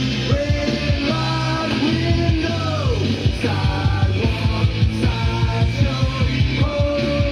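A song with a singer and a steady beat, played back from a vinyl record on a Denon DP-45F turntable fitted with a Shure M97xE cartridge.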